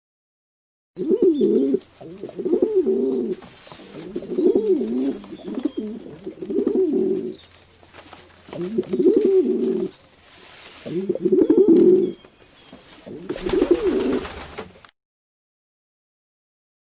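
Pigeons cooing: a run of about seven low, warbling coo phrases that starts about a second in and stops about two seconds before the end, with a brief burst of hiss near the end.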